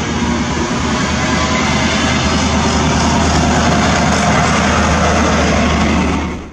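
High Speed Train (the New Measurement Train) passing at speed close by: a loud steady roar of wheels on rail with the low drone of its trailing class 43 diesel power car. The roar cuts off suddenly near the end.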